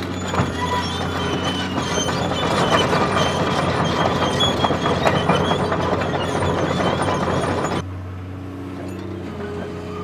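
Heavy machinery running with a steady low hum under a loud metallic clatter and high squeals. The clatter cuts off abruptly about eight seconds in, leaving only the hum.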